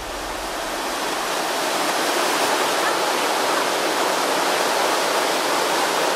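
Whitewater river rapids rushing: a steady noise of churning water that swells up over the first two seconds, then holds.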